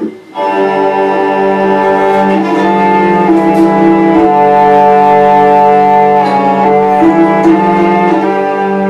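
Hurdy-gurdy playing, its strings sounded by the crank-turned wheel: a melody stepping from note to note over a steady low drone. It starts just after the opening.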